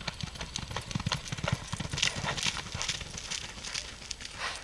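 A horse's hooves galloping on soft arena dirt: a rapid run of dull thuds, louder in the first half of the run.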